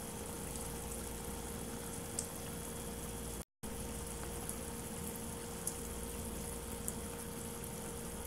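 Octopus simmering in soy sauce and oil in a frying pan: a steady bubbling with a few small pops over a steady hum. The sound cuts out for a moment midway.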